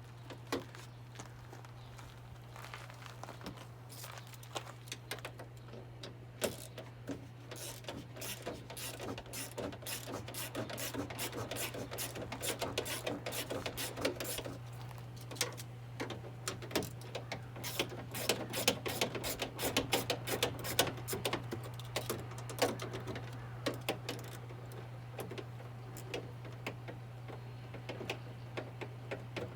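Ratchet wrench with a 10 mm socket clicking in quick runs as it works the door handle's bolts loose inside a truck door, with a steady low hum underneath.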